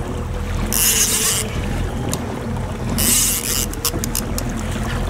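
Boat motor running at trolling speed: a steady low rumble with water washing along the hull. Two short hissing bursts stand out, about a second in and about three seconds in, each lasting well under a second, with a few faint clicks after the second one.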